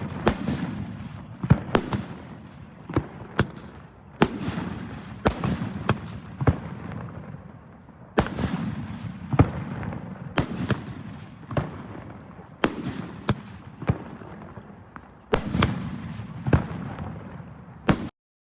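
A 25-shot 100 mm firework display cake firing gold willow and dahlia shells, about one loud bang a second, each followed by a fading crackle. The shots stop abruptly shortly before the end.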